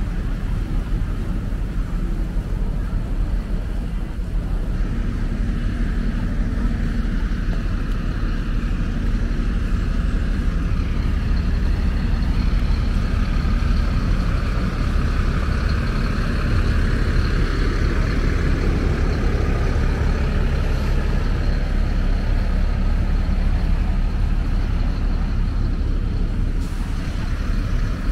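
Steady low rumble of a snowbound city street with traffic. A hazier, brighter layer swells in the middle and fades, and a faint hum sits under the first few seconds.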